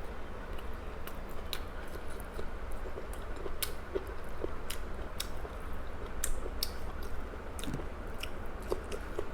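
A person chewing and biting food close to the microphone, with scattered wet mouth clicks, over a steady low hum.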